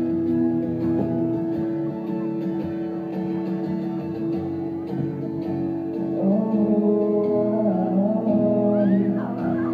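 Live guitar playing the opening of a song, steady sustained chords. A voice joins in, singing, about six seconds in.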